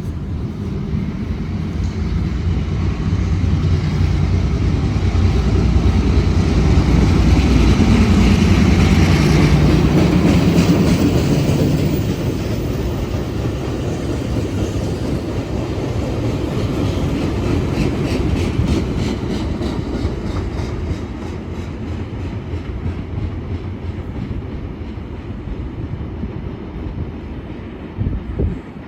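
A train passing close by. It is loudest about a third of the way in, then runs on with a regular clicking of wheels over the rail joints as the cars go by, and eases off toward the end.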